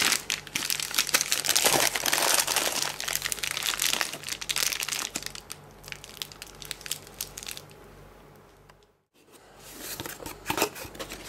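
Packing paper and plastic wrapping being crumpled and rustled by hand while parts are unwrapped from a cardboard box. The crackling is heaviest in the first five seconds, then thinner. It breaks off for a moment near nine seconds before starting again.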